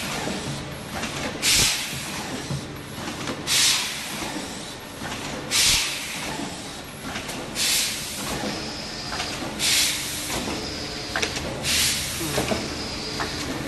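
Automatic pneumatic spout-pouch filling machine cycling: a burst of compressed-air hiss from its air cylinders about every two seconds, six in all, over steady machine running and light mechanical clacks.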